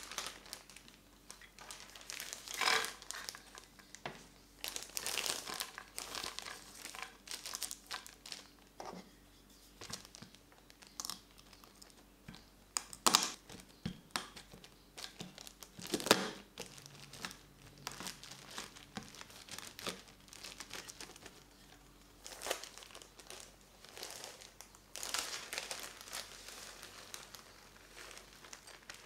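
Hazelnuts being crushed inside a plastic zip-top bag with a wooden rolling pin: the bag crinkling in irregular bursts, with a few sharper cracks.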